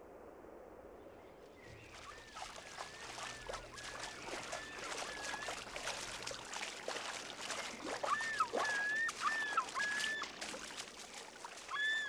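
Common loon splashing across the water surface while giving a series of short, wavering calls, each note rising and falling in pitch, growing louder from about eight seconds in.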